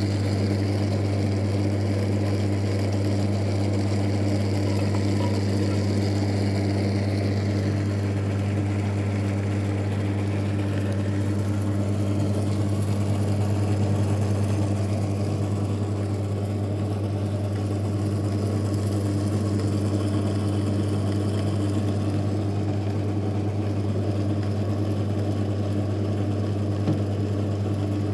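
Rollo Elf model lathe running under power, driven through its Sturmey-Archer three-speed hub gear and gear-driven leadscrew: a steady machine hum that holds the same pitch and level throughout.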